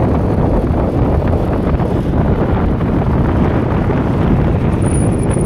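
Strong wind buffeting the microphone of a motorcycle moving at speed, a loud steady rumble with road noise, and a faint high whistle near the end.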